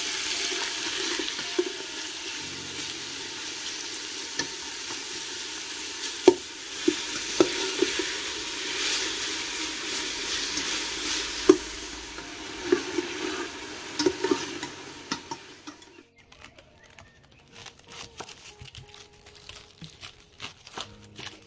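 Pork cubes sizzling in hot olive oil in an enamel pot, stirred with a metal slotted spoon that knocks and scrapes against the pot several times while the meat is seared. The sizzling cuts off about sixteen seconds in, leaving only faint clicks and rustles of a knife peeling an onion on a wooden board.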